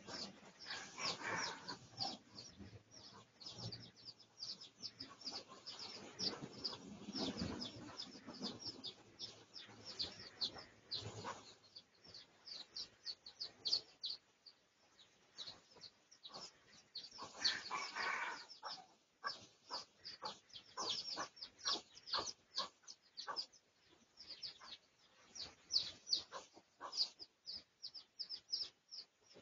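Red junglefowl clucking and calling, with a rapid run of thin, high chirps throughout and a longer call about eighteen seconds in.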